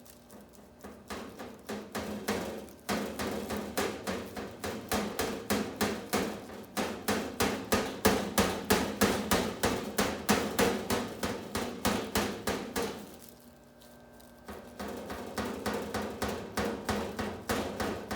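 Steady hammering on a metal stove, about three to four blows a second, with a short pause about two-thirds of the way through before the blows resume.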